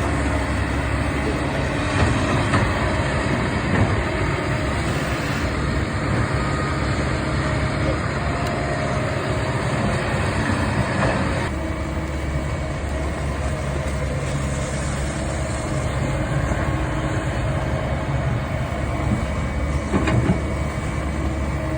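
Remote-controlled model excavator's motors and hydraulics running steadily amid a dense mechanical din. The sound changes abruptly about eleven and a half seconds in.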